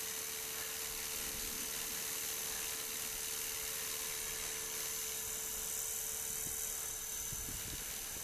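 500-size electric RC helicopter in flight: a steady hum with a constant mid-pitched tone that fades near the end.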